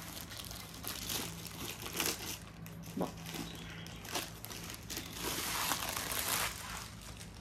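Clear plastic wrapping crinkling and rustling as it is pulled and peeled off a rolled canvas, on and off, loudest for a stretch about five seconds in.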